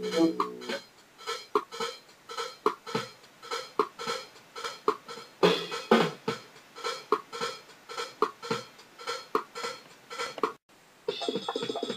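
Background music with a regular percussive beat; it drops out for a moment near the end, then a busier section starts.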